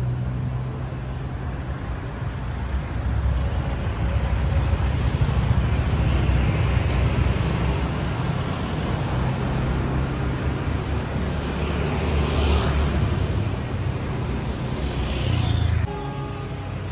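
Road traffic: a steady low rumble of cars going by on the road, swelling as vehicles pass about five seconds in and again about twelve seconds in, and dropping a little near the end.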